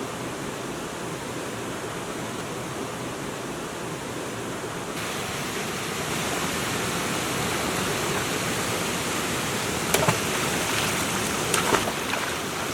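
Steady rushing of flowing water. The hiss turns suddenly brighter about five seconds in, and a few sharp clicks come near the end.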